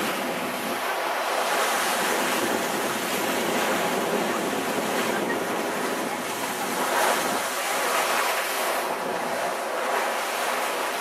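Sea water rushing and splashing along the hull of a moving catamaran, with wind on the microphone; a steady rush that swells and eases.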